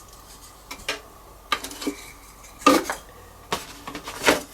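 Hard plastic RC kit parts clacking and clattering as they are handled and set down, a handful of sharp knocks at uneven intervals.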